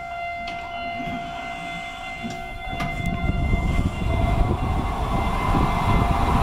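Former Seibu 5000 series electric train standing at a platform, its equipment giving a steady whine with a few clicks. From about three seconds in, a louder rough rumble and hiss builds up and holds as its doors stand open.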